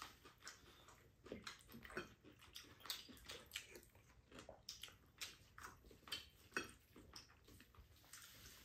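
Faint eating sounds from two people eating at a table: chewing and mouth smacks, with light clicks of spoons and chopsticks against ceramic bowls, coming irregularly a few times a second.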